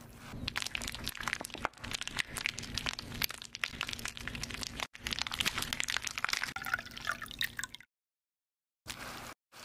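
Close-miked cake-decorating sounds: sticky, crackly squishing of cream and soft sponge being pressed, spread and smoothed with a plastic scraper, with a faint steady hum underneath. It comes in cut segments, breaking off briefly about five seconds in and stopping suddenly about eight seconds in.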